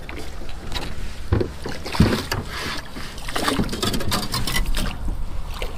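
Knocks and bumps against a small boat as a hooked crappie is reeled in beside it: two sharp knocks about a second and a half and two seconds in, then a run of small clicks and knocks, with wind rumbling on the microphone throughout.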